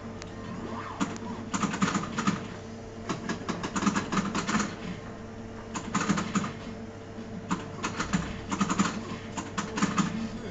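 The Sopranos pinball machine in play: bursts of rapid clicks and clacks from the flippers and the ball striking the playfield, coming in clusters every couple of seconds over a steady low hum.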